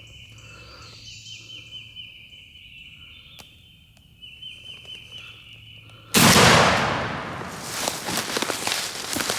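A single shotgun blast about six seconds in, loud and sudden, echoing away over a second or so, as the hunter shoots a wild turkey. It is followed by crackling and rustling in dry leaves. Before the shot there is a steady high trilling in the background.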